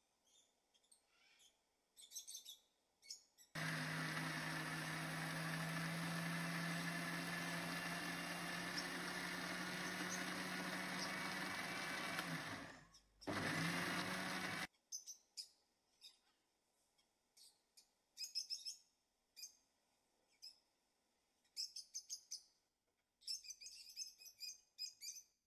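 Panasonic 1000 W mixer grinder motor running under load, blending crushed peanuts, cocoa and a little water into a thick paste. It starts a few seconds in and runs steadily for about nine seconds, cuts out for a moment, then gives one short final burst. Birds chirp sparsely before and after.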